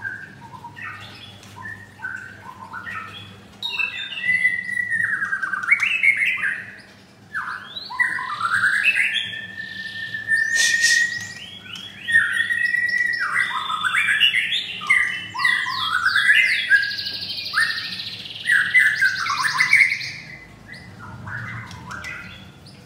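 White-rumped shamas singing: loud, varied whistled phrases with rising and falling glides and rapid trilled notes, in bursts broken by short pauses, tapering off near the end.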